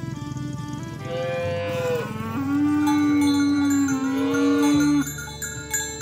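A cow or ox mooing: one long, drawn-out moo lasting about four seconds, wavering in pitch and then holding steady before it stops sharply. Background music plays under it, with chime-like notes after the moo ends.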